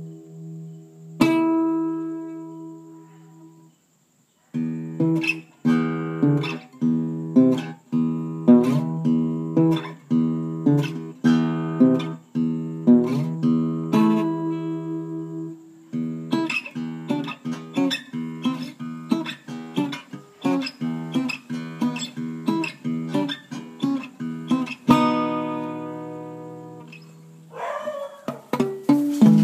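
Acoustic guitar music, chords strummed in a steady rhythm, with a short silent break about four seconds in and a long held chord near the end.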